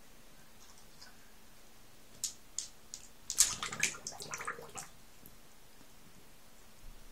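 A Scottish terrier blowing bubbles into shallow bathwater with its muzzle: a short spell of splashing and bubbling from about two to five seconds in, loudest around the middle.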